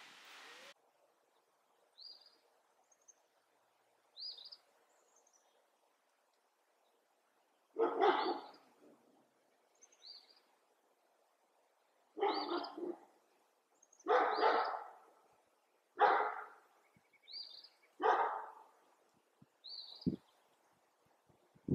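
An animal calling five times, loud, rough calls of under a second about two seconds apart, with short high bird chirps in between.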